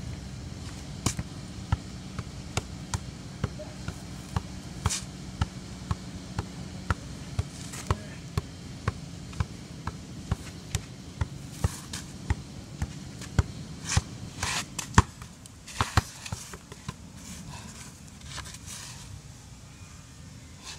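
A ball being juggled with a shoe: the foot taps it about two times a second, some two dozen touches in a row, over a steady low hum. The loudest knocks come near the end of the run, and the taps stop a few seconds before the end as the ball drops.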